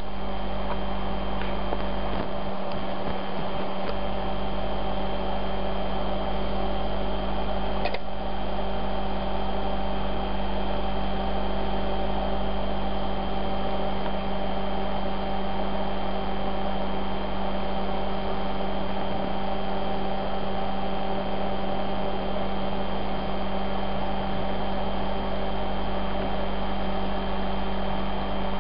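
Steady electrical hum: a low buzz with higher whining tones over it, dipping slightly in level at a regular pace.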